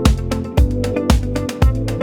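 Background music with a steady dance beat: a kick drum about twice a second under bass and sustained melody notes.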